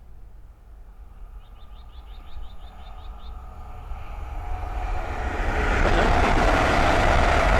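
East Midlands Railway Class 222 Meridian diesel multiple unit approaching, its engine and wheel noise building steadily until it is loud from about six seconds in as it passes. A bird's quick run of about ten high chirps comes in the first half.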